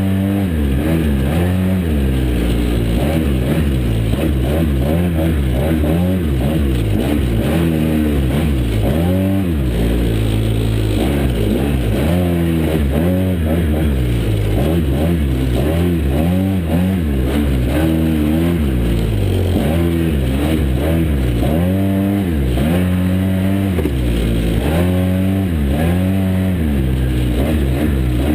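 Side-by-side UTV engine running hard, revving up and down over and over, its pitch rising and falling every second or two.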